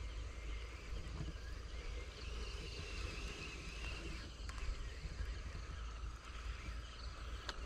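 Outdoor ambience with wind rumbling on the microphone and faint, wavering high calls in the background.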